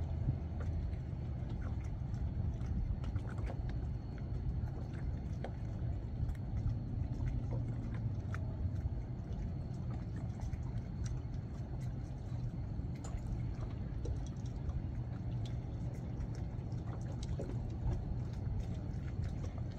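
Ambience at anchor: a steady low rumble with scattered small splashes of water lapping against the hull.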